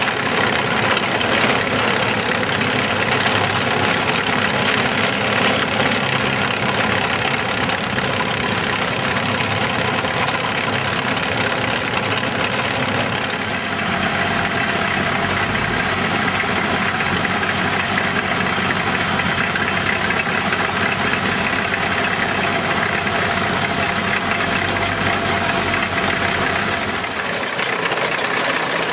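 Tractor diesel engine running steadily, driving a tractor-mounted AFT 100 heavy-duty trencher. The sound shifts slightly about halfway through and again near the end.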